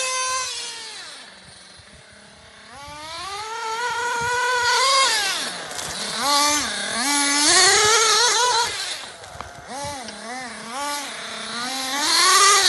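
Kyosho 1/8-scale nitro RC car's small glow engine revving as the car is driven. The engine drops and fades about a second in, then climbs again with a string of quick throttle blips and is loudest near the end.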